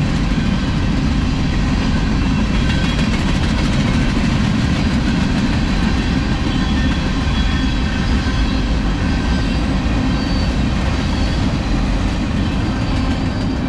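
Union Pacific freight train's boxcars, tank cars and autorack rolling past: a steady, loud rumble of steel wheels on rail, strongest in the low end.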